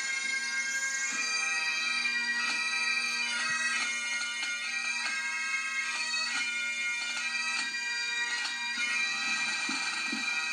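A pipe band playing: Great Highland bagpipes with steady drones under the chanter melody, and drums beating short strokes throughout.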